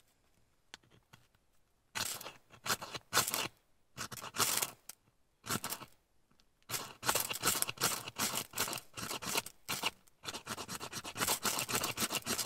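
A knife blade scraping hard along a stick of dry pine, shaving tinder for fire-lighting. The strokes come in quick runs from about two seconds in, with short pauses.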